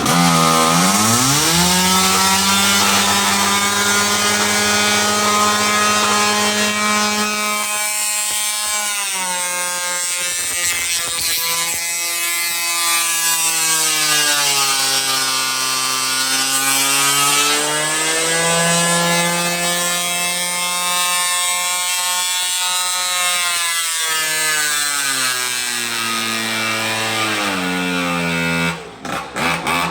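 Modified Husqvarna 543XP two-stroke chainsaw with a tuned expansion-chamber pipe running wide open on a dyno: it revs up, its engine speed sags and climbs back several times under the dyno's load, and it drops off near the end.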